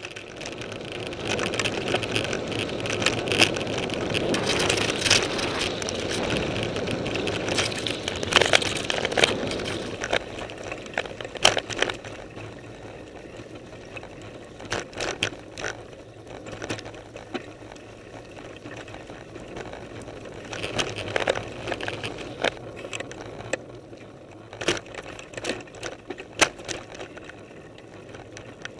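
Mountain bike riding over a rough trail: a steady rolling noise from the tyres on grass and dirt, with sharp knocks and rattles of the bike and camera mount over bumps. Louder for the first ten seconds or so, then quieter with scattered knocks.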